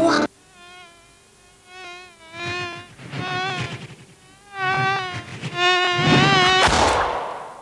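Cartoon fly-buzzing sound effect: a string of separate buzzes that waver in pitch and grow louder, ending in a short whoosh near the end.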